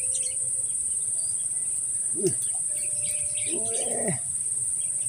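Steady high-pitched drone of insects in the grass, with two short calls that fall in pitch, about two seconds in and again around three and a half seconds in.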